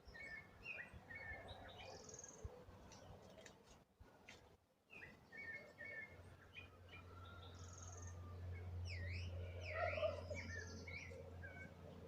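Several small birds chirping and calling in short, high notes, faintly, with a few quick down-and-up notes near the end. A low steady hum comes in about halfway.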